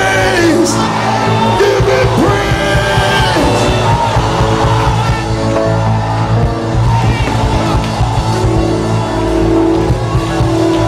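Loud live church worship music, with held chords over a steady bass, and a congregation crying out, whooping and singing over it. The cries come mostly in the first few seconds.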